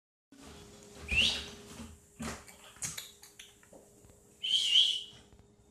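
German Shepherd puppy whining twice: a short rising whine about a second in and a longer, steadier one near the end, with a few light knocks in between.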